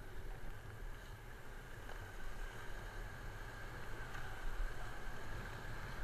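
Steady rush of river water around an inflatable raft being paddled forward, with a low rumble underneath.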